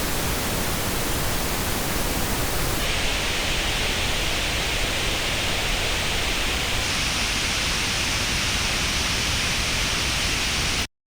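Pink noise test signal played through Apple AirPods earbuds and recorded at an artificial ear simulator: a steady, even hiss. About three seconds in it turns brighter in the upper middle, and about seven seconds in brighter again higher up. It cuts off abruptly just before the end.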